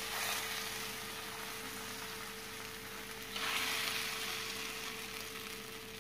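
Tomato rava dosa batter sizzling on a hot, lightly oiled tawa as it is poured, with a fresh surge of sizzling about three seconds in that slowly dies down. A faint steady hum runs underneath.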